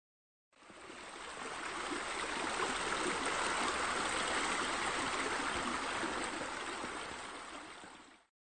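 Steady rush of running, splashing water that fades in about half a second in and fades out just before the end.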